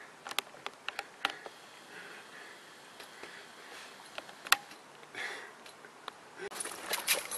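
Faint scattered clicks and rustles, with one sharper click about four and a half seconds in and busier rustling near the end.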